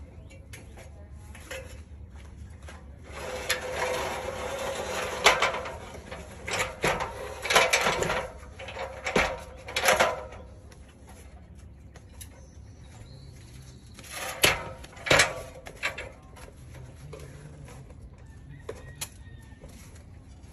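A rooster crowing, together with sharp knocks and clanks from an aluminium extension ladder being handled and repositioned against the house.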